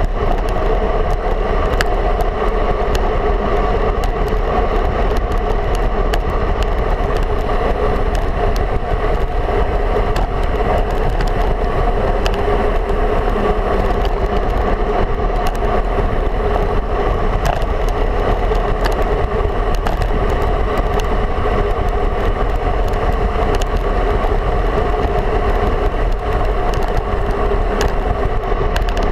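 Steady rush of wind and tyre noise on a road bike's handlebar-mounted camera while riding along a paved road, with faint scattered clicks and rattles from road bumps.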